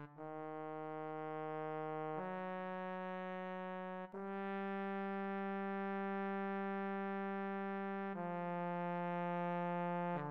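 Trombone part played back by Sibelius notation software: slow sustained legato notes, E-flat then F-sharp, then a G held for about four seconds, then dropping to F near the end. Each note swells and fades gently.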